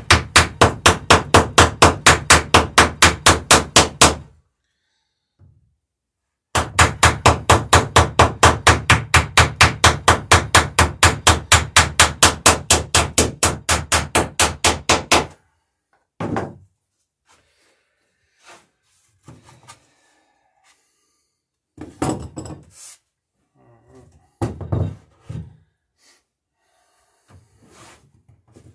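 Hammer riveting copper rivets through the planking of a wooden dory hull, with quick, even strikes at about five a second. The strikes come in two long runs with a short pause between, then stop at about 15 s, followed by a few scattered knocks.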